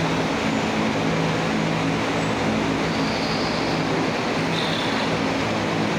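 Steady mechanical drone: a rushing hiss over a low, even hum, unchanging.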